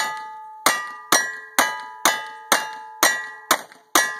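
A rapid string of gunshots at steel targets, about two shots a second, nine in all. Each shot is followed by the ringing of a struck steel plate, which fades before the next.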